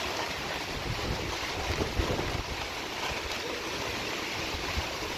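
Hurricane wind blowing hard in a steady rush, buffeting the microphone with irregular low thumps.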